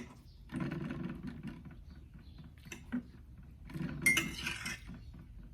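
Cutlery clinking against a dish during a meal, with handling noise and a sharp clink that rings briefly about four seconds in.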